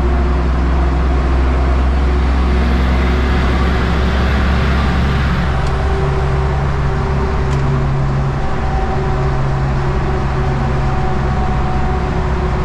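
Heavy truck's diesel engine running steadily under power, heard through the open cab window in a road tunnel, with tyre and road noise.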